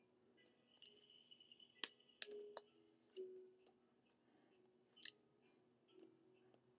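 Near silence: quiet room tone with a faint high whine over the first couple of seconds and a few faint clicks and taps, the sharpest about two seconds in and again at five seconds.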